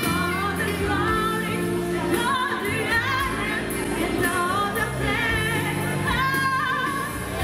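A small group of women singing together into microphones, a lead voice with others joining, over a backing track with a steady low bass line.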